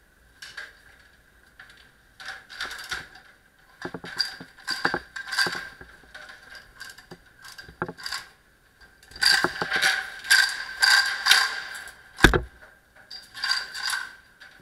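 Steel chain rattling and clinking as it is pulled and handled through gloved hands, coming in several bursts, with one heavy knock about twelve seconds in.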